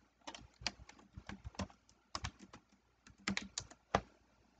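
Typing on a computer keyboard: a run of uneven keystrokes with short pauses, as a short name is typed into a text field. A single louder key press comes near the end.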